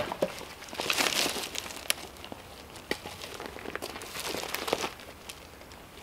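Dry pine branches and twigs being picked up and dragged over a gravel driveway, rustling and scraping in irregular surges, with a couple of sharp clicks.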